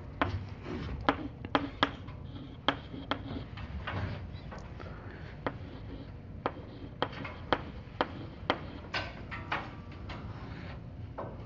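Chalk on a blackboard while someone writes: a string of sharp, irregular taps, one to three a second, with faint scratching between them.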